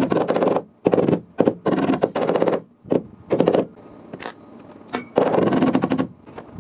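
Welder laying short bursts of stitch welds into sheet-steel car body panel, each burst a rapid crackle lasting about half a second to a second, with short pauses between, about eight in all.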